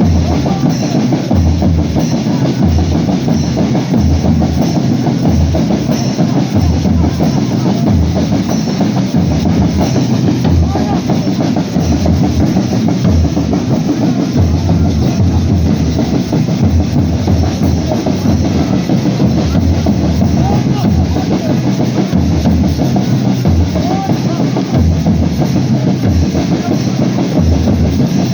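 Loud music with a heavy, steady drum beat, with voices mixed in.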